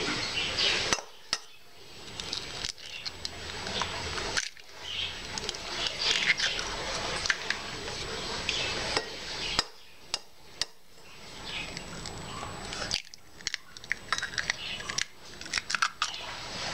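Eggs cracked one after another on the rim of a stainless steel bowl: sharp taps and clinks of shell on metal, a few seconds apart, with a quick cluster of them near the end.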